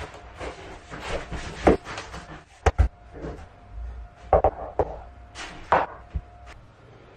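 Irregular sharp knocks and clunks from work on a cork plank floor, a handful of separate hits over several seconds.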